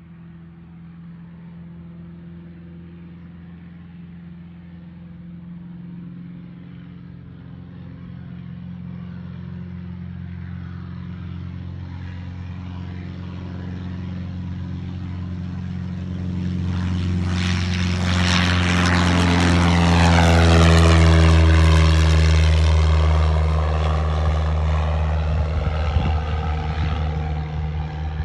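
Piper PA-28 Cherokee single-engine propeller plane at full takeoff power on a short-field takeoff. Its engine grows steadily louder as it rolls toward the listener, is loudest as it lifts off and passes about two-thirds of the way in, then eases a little as it climbs away.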